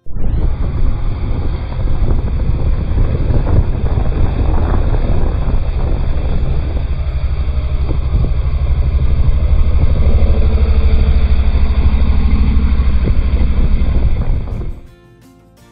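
Motorcycles riding on a road, engines running steadily and loudly; the sound starts abruptly and cuts off about a second before the end.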